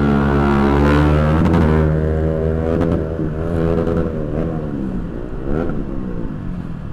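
Motorcycle engine running under way, its pitch held steady at first, then falling as the throttle is eased off about two seconds in, then rising and falling a few times, over a low rumble of wind on the microphone.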